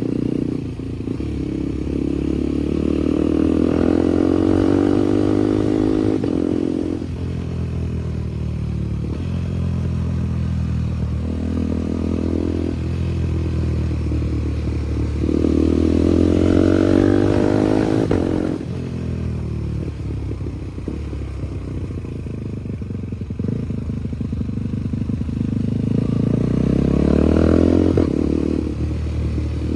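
KTM Duke 390 Gen 3 single-cylinder engine through a loud SC Project aftermarket exhaust, revving up three times and dropping back sharply each time. Crackles and pops follow as the throttle closes.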